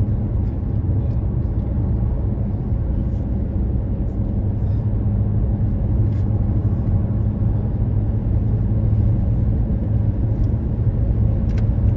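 Steady low rumble of a car cruising at highway speed, mostly tyre and wind noise heard from inside the cabin.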